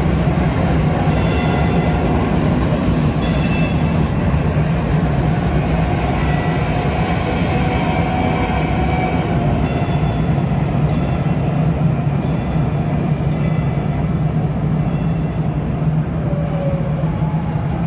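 Kinki Sharyo light rail train running slowly past on street track: a steady low running hum with scattered light clicks.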